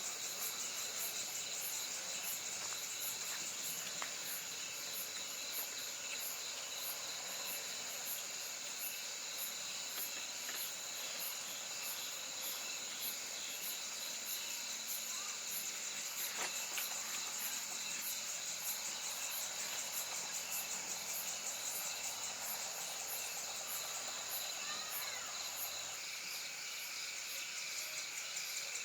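Insects chirping in a steady chorus: a constant high buzz with a very high call repeating in an even rhythm, with a few faint clicks.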